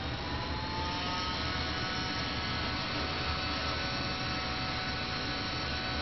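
Handheld electric heat gun running, its fan blowing hot air onto heat-shrink tubing on a coax cable: a steady rush of air with a faint whine that rises in pitch over the first second or so, then holds steady.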